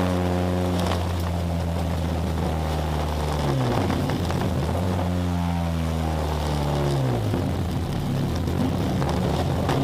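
Opel Astra 2.0 16v four-cylinder engine running under load, heard from inside the stripped cabin of the race car. The revs hold steady, dip about a third of the way in, climb back, and dip again near three quarters of the way through.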